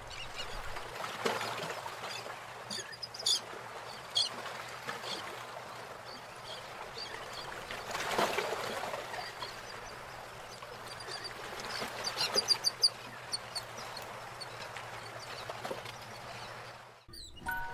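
Paintbrush working wet acrylic paint on a plastic palette: soft swishing strokes with small wet squeaks and clicks, a few near 3 to 4 seconds in and a cluster around 12 to 13 seconds.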